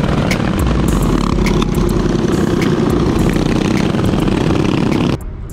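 Minibike engine running under way, a steady dense drone with scattered clicks and rattles, that drops away suddenly near the end.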